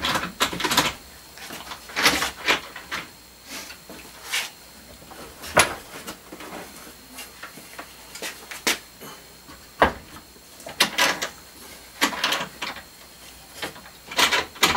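Irregular knocks, clunks and short scrapes as a metal radio chassis and the wooden uprights of a bench fixture are handled and shifted into position on a wooden workbench.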